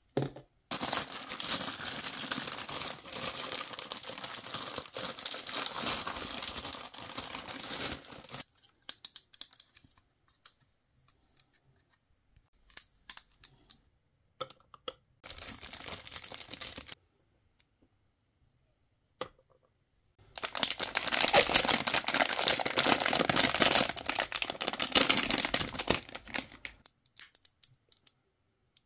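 Plastic wrapping crinkling and tearing as small blind-box toy pieces are unwrapped, in two long stretches, the second, about two-thirds of the way in, the louder. Between them come scattered light clicks and taps of hard plastic pieces.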